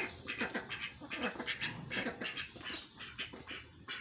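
Hens and a duck calling over and over as they peck at watermelon rinds: short calls that fall in pitch, several a second, growing fainter toward the end.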